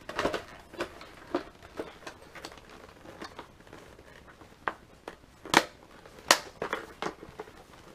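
Handling noise of a modular motorcycle helmet being lifted and pulled on over the head: rustling and scraping of the shell and padding, with scattered plastic clicks and two sharp clicks a bit past the middle, about three quarters of a second apart.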